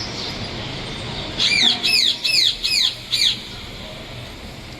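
A small parrot, the visiting conure, gives a quick run of about six shrill, harsh calls, starting about one and a half seconds in and lasting about two seconds, over a steady background hum.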